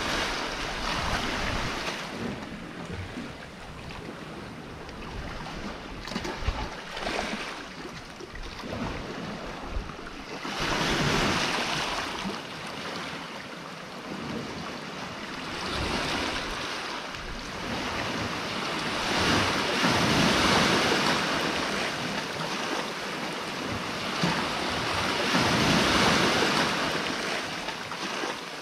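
Sea waves breaking and foaming around the rocks. The noise swells and ebbs in long surges every several seconds, with some wind on the microphone.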